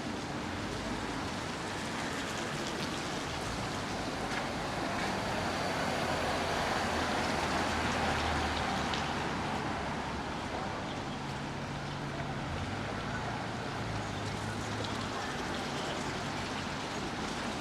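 Steady rain, with a vehicle passing on the wet road and its tyre noise swelling and fading about halfway through. A low engine hum follows near the end.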